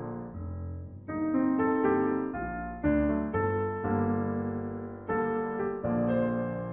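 Background piano music: slow notes and chords, each struck and left to ring and fade before the next.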